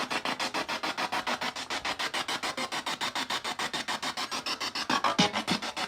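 Ghost-hunting spirit box sweeping through radio stations: a choppy static hiss that pulses about ten times a second, with a brief voice-like fragment near the end.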